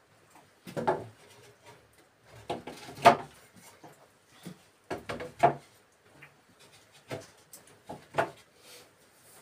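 Wooden window sash handled and fitted into its wooden frame: a series of wooden knocks and scrapes, the loudest about three seconds in and another about five and a half seconds in.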